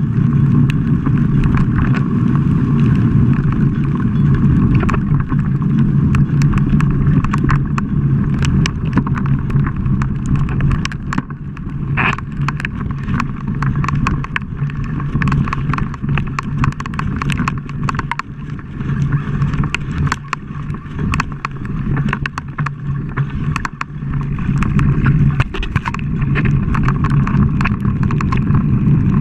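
Mountain bike descending a dirt trail, heard from a camera mounted on the bike: a steady low rumble of knobby tyres rolling over dirt, with frequent clicks and rattles from the bike jolting over bumps and roots.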